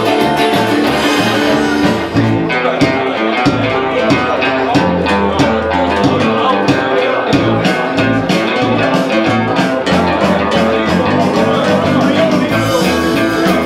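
Live band music led by strummed acoustic guitars, with a steady rhythm.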